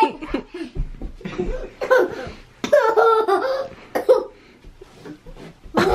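Laughing and giggling in short bursts, with a few sharp thumps in between.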